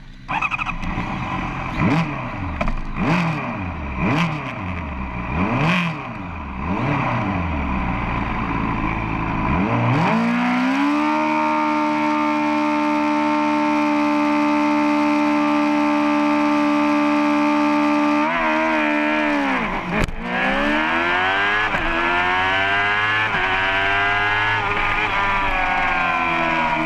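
Racing superbike engine on the start grid, heard from on board: the throttle is blipped again and again for about ten seconds, then held at steady high revs. After a drop in revs and a sharp click, the bike launches and accelerates hard, its pitch climbing again and again through the upshifts.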